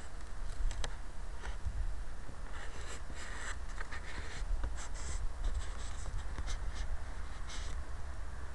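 Wind buffeting a small keychain camera's microphone as a steady low rumble, with scattered scratchy rustling and short clicks throughout.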